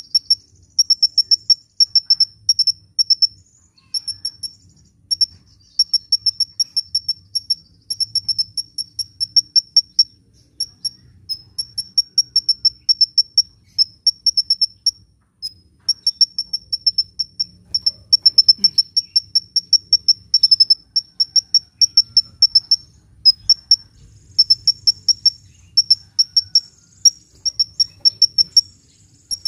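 Sunbird singing: rapid trains of high, thin chirps, each run lasting about a second, repeated again and again with short pauses between.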